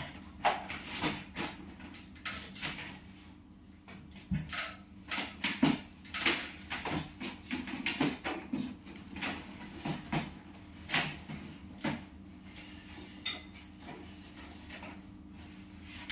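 Irregular knocks, clicks and clatter as a home coffee bean roasting machine and other kitchen items are handled and shifted on a shelf, over a steady low hum.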